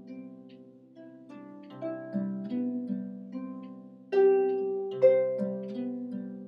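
Solo harp playing a slow passage, plucked notes and chords ringing and fading, with a louder chord struck about four seconds in and another about a second later.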